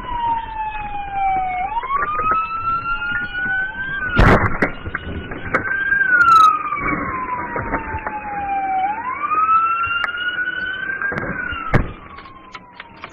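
Police car siren wailing in slow rising and falling sweeps, with a second siren tone overlapping. Sharp loud knocks come about four seconds in and again just after six seconds, with a smaller one near the end.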